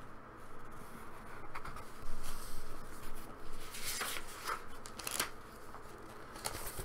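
Paper rustling and crinkling as a handmade paper booklet is handled and its pages turned, with a few sharper crackles near the middle.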